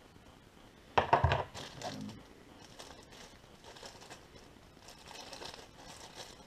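Small plastic action-camera mount parts clattering onto a table, a quick cluster of sharp knocks about a second in, followed by faint crinkling and rustling of small plastic parts and packaging being handled.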